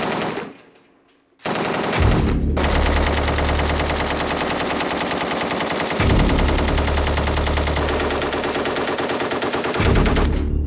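SAR 762 MT 7.62×51 mm NATO belt-fed machine gun firing long, sustained bursts of fully automatic fire, a rapid, even rattle of shots. The fire starts about a second and a half in and runs on until just before the end.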